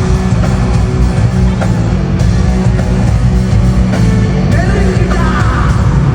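Loud live band music from an arena sound system, heavy in the bass, with a voice singing over it.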